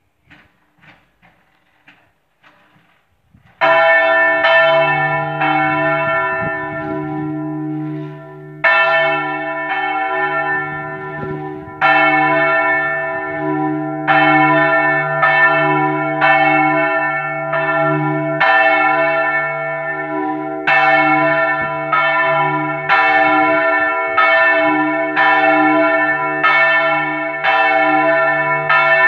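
A large bronze church bell (Marinelli, cast 1876, tuned to a sharp E, Mi3 crescente) being swung full circle by its motor. After a few faint clicks, its clapper strikes about three and a half seconds in. The strikes come unevenly at first while the swing builds, then settle to about one a second, each stroke's ringing running into the next.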